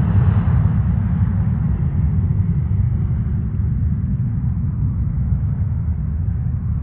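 Airliner jet engines roaring at a distance, the higher rush fading over the first few seconds, under a steady low rumble of wind buffeting the microphone.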